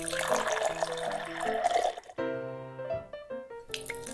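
Liquid poured from a glass pitcher into a small plastic cup. The pour stops about two seconds in, and a second pour into another cup starts near the end. Light background music plays throughout.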